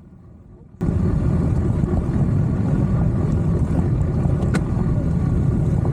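Adventure motorcycle running under way, its engine and road noise cutting in suddenly about a second in and then holding steady.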